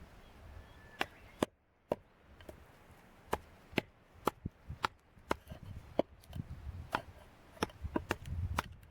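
Wood being chopped by hand: a run of sharp, irregular strikes, about two a second, starting about a second in.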